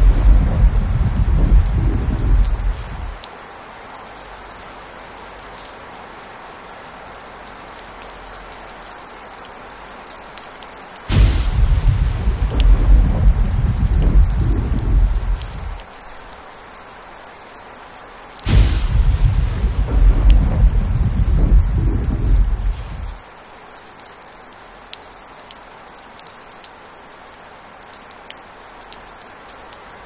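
Heavy rain falling steadily, with thunder rumbling in three long peals, each starting sharply and lasting about four to five seconds: one dying away about three seconds in, the others starting about eleven and eighteen seconds in.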